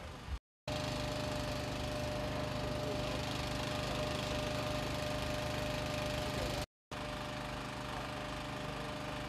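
A motor running steadily at idle, with a low even drone and a faint steady whine, broken twice by short dead gaps where the footage is cut.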